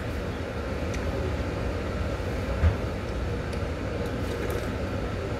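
Steady low rumble of background noise, with a few faint light clicks and a brief soft thump about two and a half seconds in.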